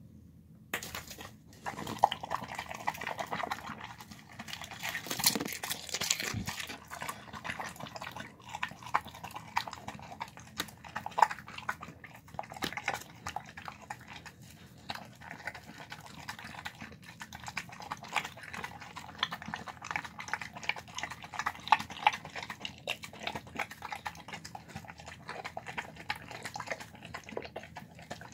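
Dog eating from a plastic bowl: continuous wet smacking, licking and chewing, with many sharp clicks of teeth and tongue against the bowl, starting about a second in.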